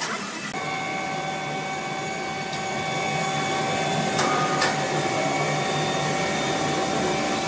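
Overhead crane's electric hoist running with a steady whine of several constant tones, growing slightly louder as it carries a large log, with a few faint clicks.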